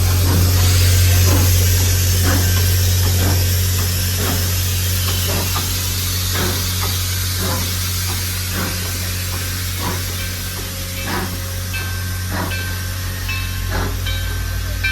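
Steam hissing from Grand Canyon Railway 4960, a 2-8-2 steam locomotive, loudest at first and easing off over a few seconds. Under it runs a steady low hum, with regular beats about once a second as the train moves, and short high tones near the end.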